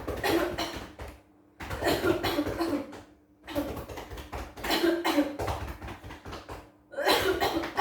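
Cupped-hand chest percussion: rapid clapping on a patient's back to loosen phlegm from congested lungs. It comes in about four quick runs of one to three seconds, with short pauses between them.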